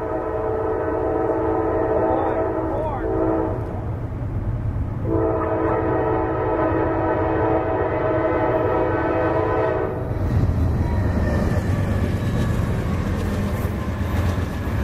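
Norfolk Southern diesel locomotive's air horn sounding two long blasts, the second held about five seconds, as the train approaches. About ten seconds in, the horn stops and a low rumble rises as the locomotives pass.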